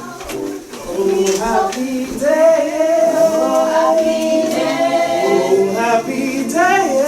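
A group of voices singing without accompaniment. It is softer at first and grows louder about two seconds in, into long held notes.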